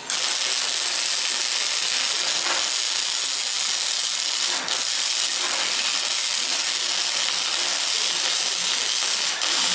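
Wire-feed welding gun arc welding thin steel strips: a steady, loud hissing sizzle that starts abruptly, with two brief breaks in the arc, about halfway and near the end.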